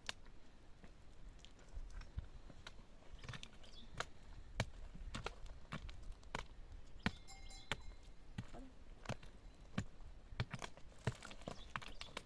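Irregular sharp knocks and taps, one or two a second, from hand building work with stones and tools.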